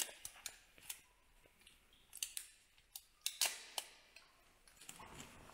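Tyvek tape being handled during a puncture repair on an inflatable boat: an irregular series of sharp clicks and crinkles, some louder snips clustered about two and three seconds in.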